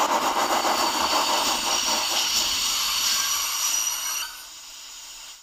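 Loud rushing, hissing noise with a rough fast texture, dropping about four seconds in to a quieter steady hum.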